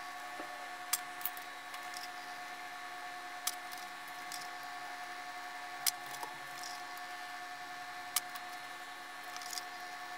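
Pouch laminator running, its roller motor giving a faint steady whine, with a few light clicks as a circuit board coated in dry-film solder mask is fed through the rollers.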